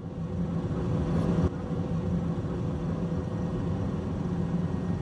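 Steady low drone of an aircraft engine, with a faint steady hum running through it; the level dips slightly about one and a half seconds in.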